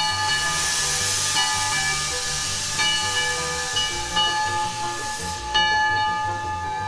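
Loud hiss of escaping steam from an 1889 Porter wood-fired steam locomotive as it gets under way, cutting off sharply about five seconds in.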